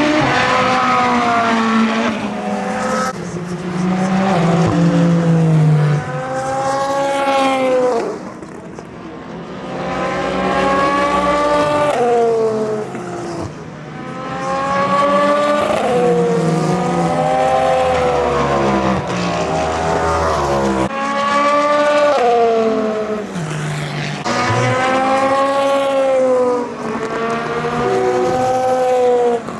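Endurance race cars (prototypes and GT cars) passing one after another at speed, engine notes climbing through the gears and dropping at each shift and as each car goes by, several cars overlapping.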